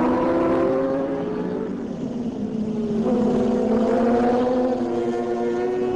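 Racing superbike engines running at high revs as the bikes pass through a corner. One engine note falls away about two seconds in, and another comes up about a second later.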